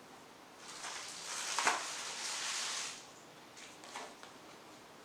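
Packaging being handled: about two seconds of rustling and crinkling with a sharper crackle in the middle, then a couple of light taps.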